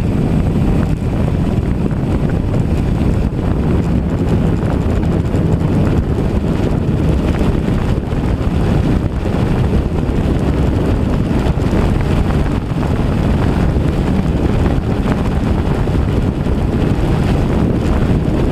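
DJI Phantom quadcopter's propellers running steadily while strong wind buffets the microphone with a heavy low rumble.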